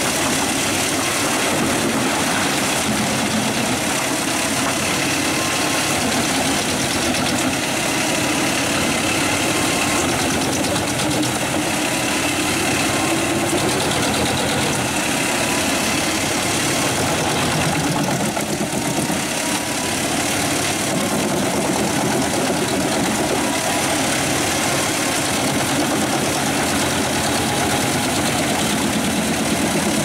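A machine's engine running steadily for the whole stretch, loud and even, with a faint steady whine above the noise.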